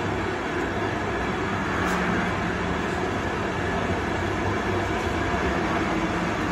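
Passenger train running at speed, heard from inside the driver's cab: a steady rolling rumble with a low hum.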